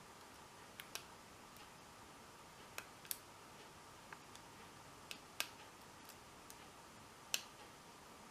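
Lock pick and tension wrench clicking against the pins inside an American Lock 1100 series padlock during single pin picking. Scattered sharp clicks come at uneven intervals, and the loudest is near the end.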